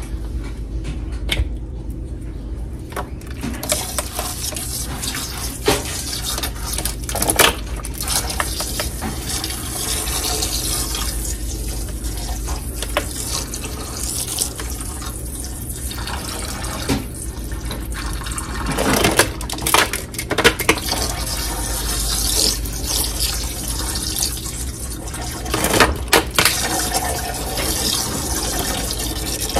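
Fish sauce pouring in a steady stream from plastic bottles into a pot that already holds liquid, splashing as it fills, with a few short knocks from handling the bottles.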